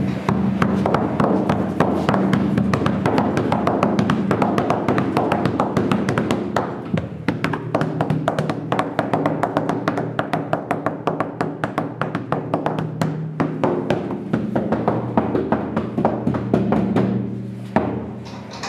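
Music with a dense run of rapid taps over steady low tones, easing off near the end.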